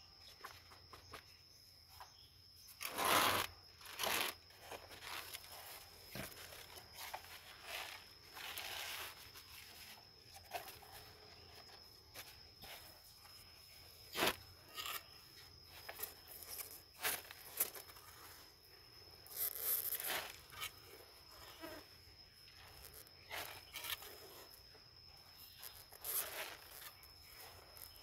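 Scattered rustling, scraping and knocking of potting soil, leaves and plastic flower pots being handled while repotting, with a few louder crackling scrapes. A steady thin high tone sounds underneath.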